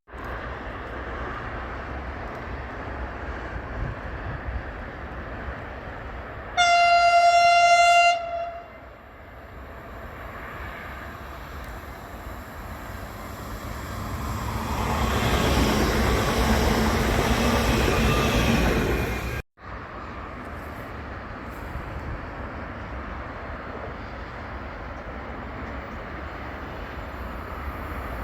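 A train horn sounds one steady note for about a second and a half, then a train approaches and passes close by, its rumble and wheel noise swelling before cutting off abruptly. Afterwards a steadier, quieter rumble continues.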